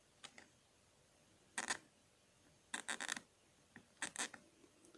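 Faint, short scratchy clicks of a fine needle scraping back and forth across an iPhone's earpiece speaker mesh, in small clusters about a second apart. The needle is working packed dirt out of the clogged grille that muffles the earpiece.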